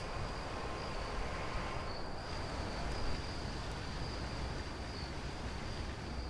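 Crickets chirping in a steady high trill over a low background rumble.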